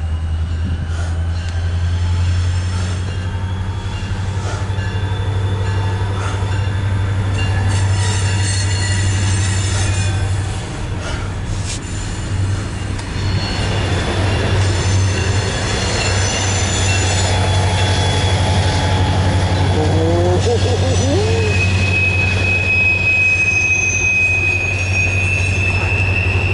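Freight train cars rolling past with a steady low rumble and scattered clicks, and wheels squealing against the rails; about twenty seconds in a steady high-pitched wheel squeal sets in and holds.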